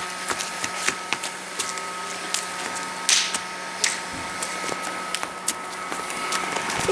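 Gazillion volcano bubble machine's small motor running with a steady whirring hum, with scattered light clicks and a short hiss about three seconds in.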